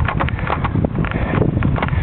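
Wind buffeting the microphone as a low rumble, with rapid, irregular rattling clicks and knocks from the camera moving over the road surface.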